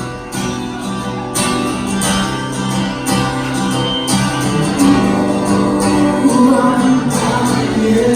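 Live band playing an instrumental stretch between sung lines of a song, with guitar chords to the fore.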